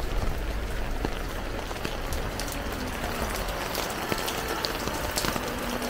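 Steady rain falling, with many scattered sharp drop ticks that grow thicker after about two seconds, over a low rumble that fades about halfway.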